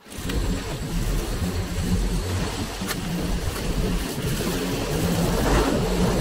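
Lawnmower engine running steadily.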